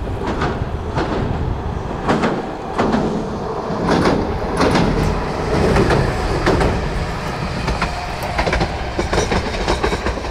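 Two-section low-floor light-rail car rolling over a steel girder rail bridge: its wheels knock over the rail joints in irregular clacks above a steady low rumble.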